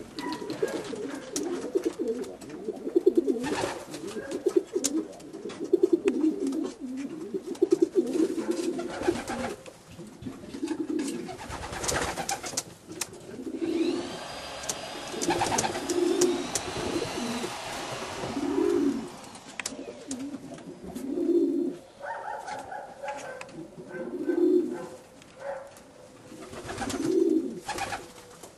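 Racing pigeons cooing: low, throaty coos, almost continuous at first, then one every second or two. Scattered sharp clicks and knocks sound among them.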